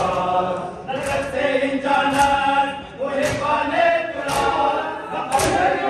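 Men chanting a Muharram noha (mourning lament) in unison, with the sharp slap of matam, hands striking bare chests together, five times at about one a second.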